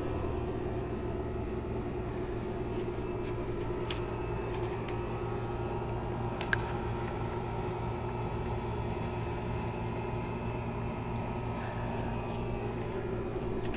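Steady mechanical hum over a faint hiss, with one sharp click about six and a half seconds in.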